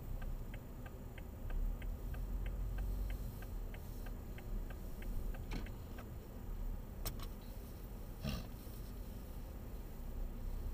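Car turn-signal indicator ticking evenly, about three ticks a second, over low engine and road rumble inside the car's cabin. The ticking stops a little past halfway, and a few separate clicks follow.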